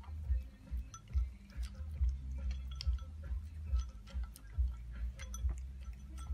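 A dog chewing and crunching dry kibble in a steady rhythm of a little over two chews a second, with light clicks and clinks as its muzzle knocks the tipped ceramic bowl.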